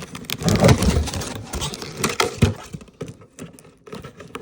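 Handling of a remote-control toy and its packaging: a burst of rustling and clattering about half a second in, with a couple of knocks, then scattered lighter clicks.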